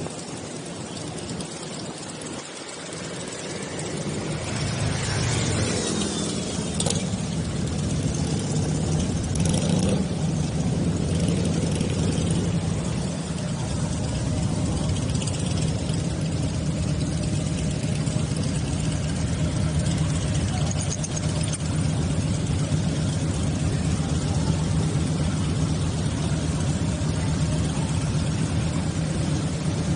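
Motorcycle engine running under way, a steady drone that builds over the first several seconds and then holds even.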